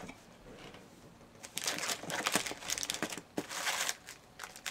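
Snack packaging crinkling and rustling as it is handled and pulled out of the box, starting about a second and a half in, with a short pause near the end.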